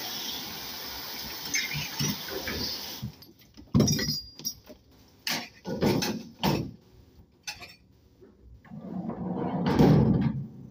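Commercial pre-rinse spray hissing onto a plastic rack of cutlery, stopping about three seconds in. Then cutlery and the rack clatter as they are handled, and a swelling rumble near the end peaks just before it stops.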